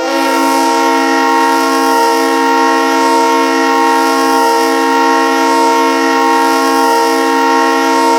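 Hockey arena goal horn sounding one long, steady, loud blast, several horn tones held together without a break.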